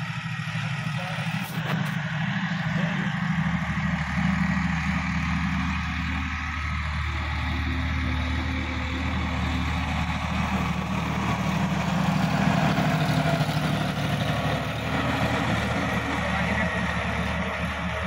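A Sonalika DI-50 RX tractor's diesel engine runs steadily under working load while its rotavator tills the soil. It is loudest a little past the middle, as the tractor passes close, then eases as it moves away.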